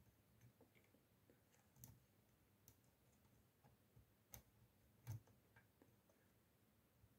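Near silence with faint, scattered clicks and taps, a handful over several seconds, the loudest about five seconds in, as of small tools or parts being handled.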